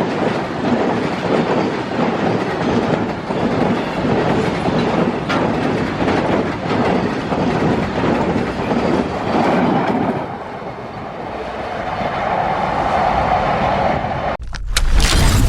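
Freight train passing at speed, its wagons' wheels clattering rhythmically over the rail joints. The clatter eases about ten seconds in and gives way to a steadier hum, then cuts off abruptly near the end.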